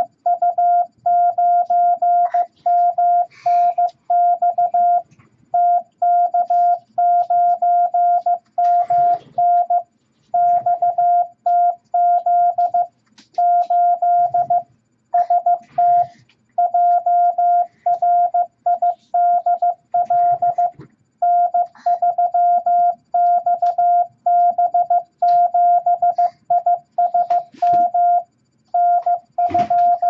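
Morse code practice tones from an MFJ-414 Classroom Morse Tutor: a single steady beep keyed into dots and dashes, sending random groups of letters and numbers at 15 words per minute, with short pauses between the groups.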